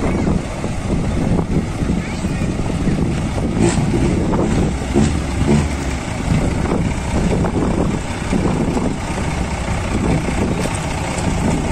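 Lorry traffic: a heavy engine running steadily under road noise, with wind buffeting the microphone.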